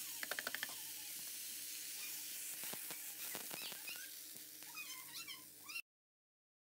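Washed rice and browned vermicelli sizzling steadily in hot fat in a pot as they are stirred with a spoon, with a quick patter of grains landing in the first second. Short high calls sound in the background near the end, and all sound cuts off suddenly shortly before the end.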